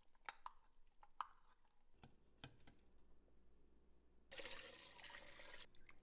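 Faint kitchen handling at a stainless stockpot: a few light clinks of a spoon against the can and pot. About four seconds in comes a short rush of noise, about a second and a half long, as food is tipped from a measuring cup into the soup.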